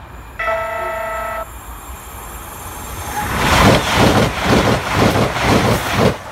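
A steady horn-like warning tone sounds for about a second near the start. From about three seconds in, a train passes close by: loud, rhythmic clattering of its wheels over the rails, about three to four beats a second, easing off just before the end.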